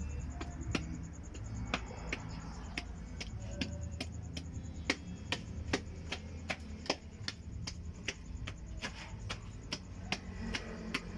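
Irregular sharp clicks, about two a second, over a faint low hum.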